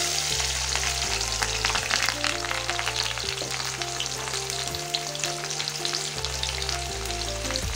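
Sliced onions dropped into hot mustard oil in a kadai, sizzling loudly with a sudden burst as they hit the oil, then frying steadily with constant crackling and spitting.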